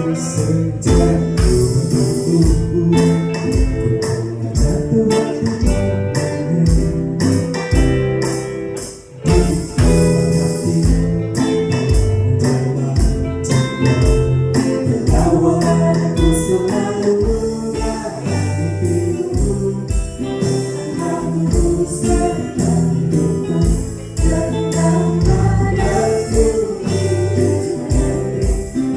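A pop band playing a song with singing, backed by an electric drum kit keeping a steady beat, bass guitar, and electric and acoustic guitars. The band drops out briefly about nine seconds in, then comes back in.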